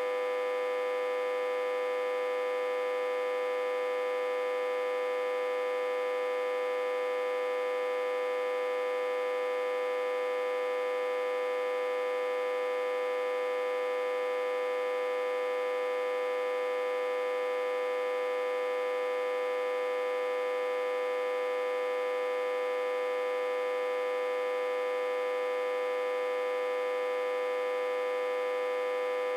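Autotransformer humming with a steady, unchanging pitched tone and many overtones, driven at about 60–80 V while reverse-connected to a step-down transformer.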